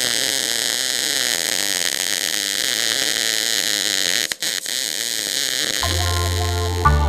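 Electric welding arc burning with a steady hiss, cutting out for a moment about four seconds in. Intro music with a low bass note comes in near the end.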